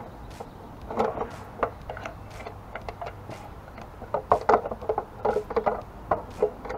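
Irregular light clicks and knocks of a round motorcycle headlight being handled and seated into its shell, with a screwdriver held in the working hand. A short cluster comes about a second in and a busier run from about four seconds on.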